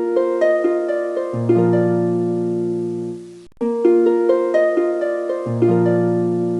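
Background music: a gentle melody of plucked-string notes playing a short phrase. It stops briefly about three and a half seconds in, then repeats.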